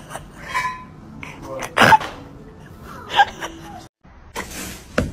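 A Siamese cat crying out in short yowls, twice, with the two loudest cries about a second apart. The sound drops out briefly near the end and a short hiss follows.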